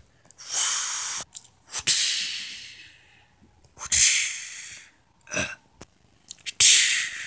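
A person making hissing "pssh" fight sound effects with the mouth for toy action figures: four bursts, each fading away, with a few sharp knocks in between.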